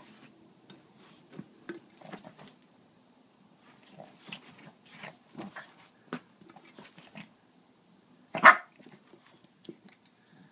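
Small puppy playing on a bed: scuffling and short play growls, then one loud bark about eight and a half seconds in.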